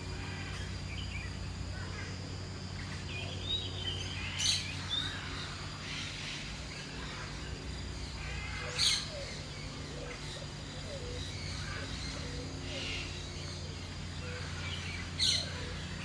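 Several birds calling and chirping, with three loud, sharp chirps standing out about four, nine and fifteen seconds in, over a steady low hum.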